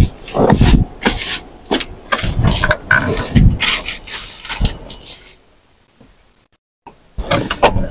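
Rubbing, rustling and irregular bumps as a person climbs into the rear seat of a car. The knocks and rustles come thickly for about five seconds, stop, and start again near the end.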